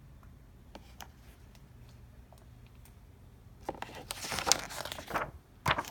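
Paper rustling and crinkling as a picture-book page is turned, starting about three and a half seconds in and lasting about a second and a half, with another short rustle near the end; before it only a few faint clicks.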